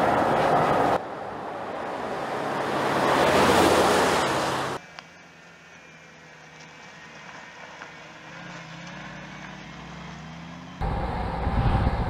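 Mercedes G-Class twin-turbo V8 SUVs driving, in several edited shots. There is a rush of road and wind noise that swells to its loudest about halfway through, then cuts off. A quiet, low engine hum follows, rising a little in pitch. Near the end comes a loud, low V8 engine note.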